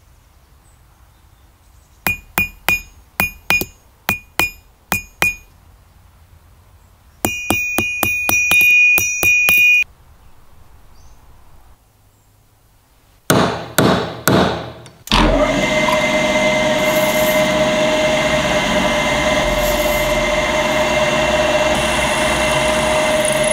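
A hammer striking a short steel rod on an anvil, with about ten ringing blows followed by a fast run of strikes that ring on. A few more hammer blows land on a pin punch held in a bench vise. Then a drill press runs steadily, boring into the end of the steel rod with a constant high tone.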